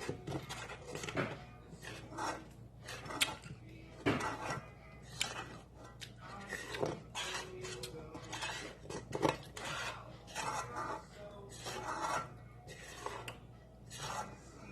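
A utensil scraping and knocking against a pan in irregular strokes as thick yema spread (condensed milk, sugar and butter) is stirred while it cooks.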